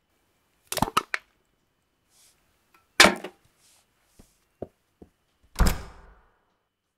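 Foley sounds: a quick rattle of clicks about a second in, then a loud sharp thunk. After that come three footsteps and a door shutting with a heavy low thud near the end.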